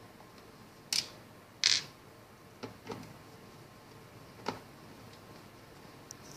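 About five sharp clicks and knocks of a screwdriver working the screws of a plastic remote-control transmitter case, the loudest about two seconds in.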